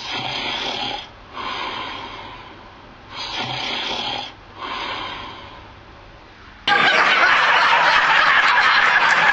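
A man snoring: two slow breaths, each a rasping snore followed by a fading breath out. About two-thirds of the way in, a much louder harsh, steady noise starts suddenly and runs for about three seconds.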